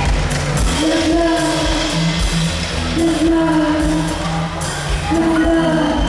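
Pop-rock music with a steady beat and bass under a voice singing long held notes, a new phrase about every two seconds.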